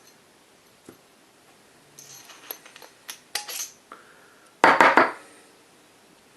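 Small hard airsoft rifle parts clicking and clinking as they are handled on a workbench, with a brief loud clatter of several quick knocks a little before the end.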